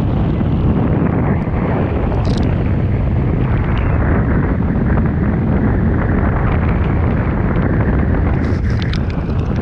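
Steady loud rush of wind buffeting an action camera's microphone and water spraying at speed while barefoot water skiing off a ski boat's boom, with the towboat's engine underneath. A few sharp crackles come near the end.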